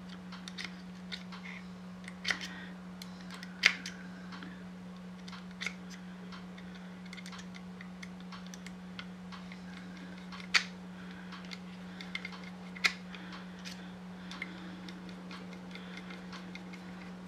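Small screwdriver driving the side-plate screws into a Crosman 357 pellet pistol: scattered small metal clicks and ticks, a few of them sharper, over a steady low hum.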